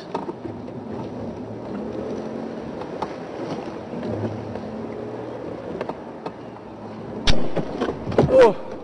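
Open game-drive vehicle's engine running as it moves over rough bush ground, with a sharp knock about seven seconds in and a louder brief jolt near the end.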